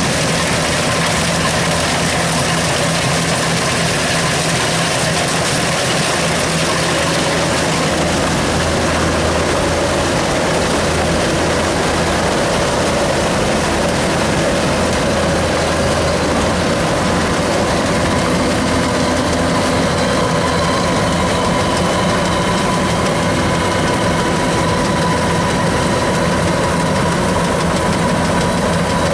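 Kubota DC93 rice combine harvester running steadily, its diesel engine and threshing machinery making a continuous drone. A faint higher whine joins in about two-thirds of the way through.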